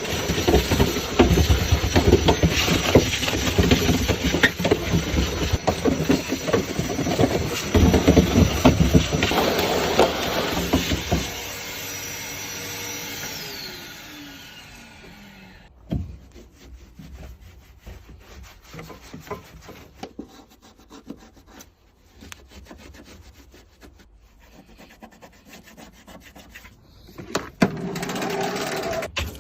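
Brush scrubbing on a dirty car surface in rapid back-and-forth strokes, over a steady motor whine. The scrubbing stops after about eleven seconds and the whine winds down soon after, leaving scattered light clicks and handling noises, with a brief louder rush of scrubbing near the end.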